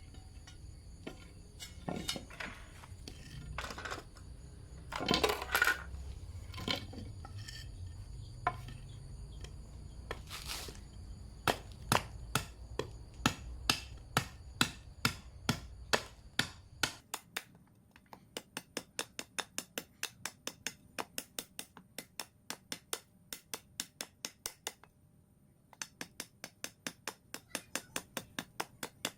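Scattered knocks over a low hum, then a steady series of sharp taps, about two or three a second, with a short pause near the end. The taps fit light hammer blows on the metal of a hoe being repaired.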